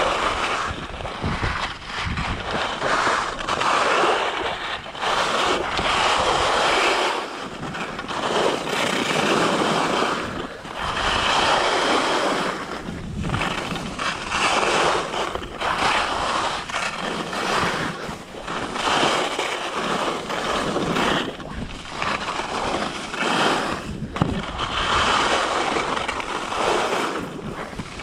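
Skis carving and scraping over a groomed, hard-packed piste, turn after turn. The hiss of the edges swells and fades every second or two, with wind buffeting the microphone.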